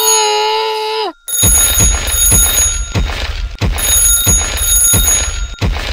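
A held, pitched cartoon-style vocal sound for about a second, then ringing like an alarm clock, with steady strikes about three times a second.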